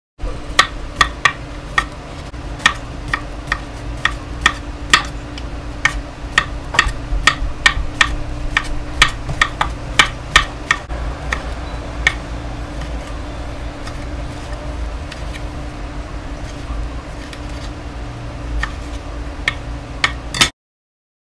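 Chef's knife slicing cucumber and tapping a wooden cutting board, a sharp knock with each cut, about two to three a second for the first half, then fewer and irregular as a tomato is cut near the end. A steady low hum runs underneath.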